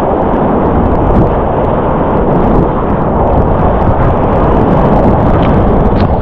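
Loud, steady rush of whitewater rapids around a kayak, with the water and air buffeting the camera's microphone.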